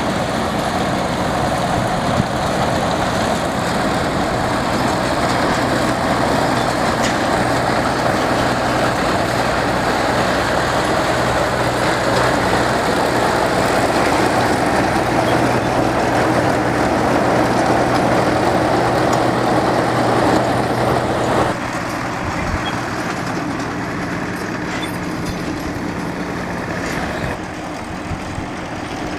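A heavy engine running steadily with a low hum and machinery noise. It drops noticeably quieter about three-quarters of the way through, and a little quieter again near the end.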